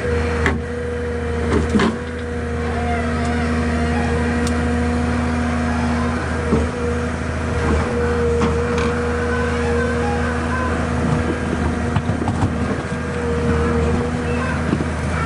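Forestry harvester's diesel engine and hydraulics running steadily with a droning whine, broken by a few sharp clicks and knocks.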